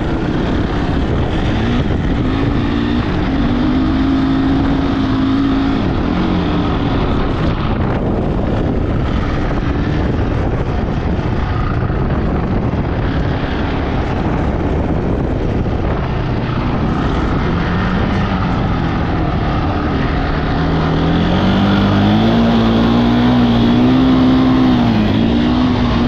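Honda ATV engine pulling under load, its pitch rising about two seconds in, easing off, and climbing again and louder near the end. Heavy wind noise on the microphone runs under it.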